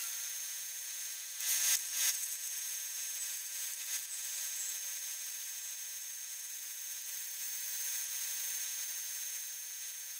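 Metal lathe turning down a steel rod cut from a socket extension: a steady hiss and thin high whine of the cut and the running machine, with two brief louder scrapes about one and a half and two seconds in.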